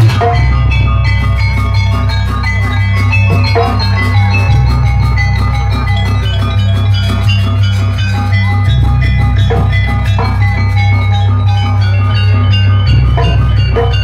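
Jaranan gamelan music: fast, steady drumming with ringing metallophone notes over a deep held bass tone that changes pitch every four seconds or so.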